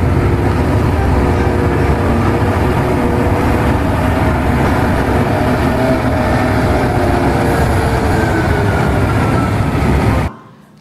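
Heavy mining haul truck running with a steady, loud rumble, its engine pitch drifting slowly; the sound cuts off abruptly near the end.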